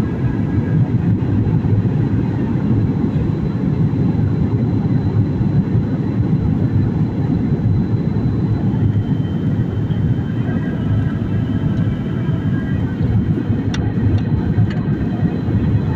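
Steady airliner cabin noise in flight: a constant low roar of engines and rushing air, with a few faint clicks near the end.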